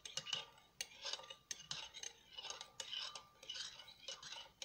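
Metal spoon scraping and pressing wet grated carrot pulp against a fine mesh sieve, squeezing the juice through, in repeated short strokes about two a second with a few sharp clicks.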